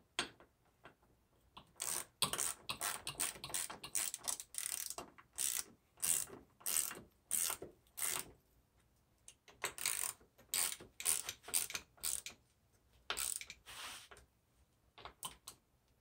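Hand ratchet with a Torx bit clicking in repeated short bursts as it is swung back and forth, tightening factory windshield-hinge bolts down through a mirror bracket.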